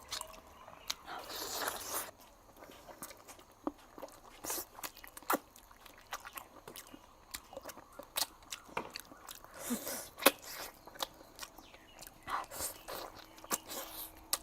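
A person eating braised pig trotters up close: biting and chewing the skin and tendon, with many short lip smacks and tooth clicks and a few longer sucking sounds.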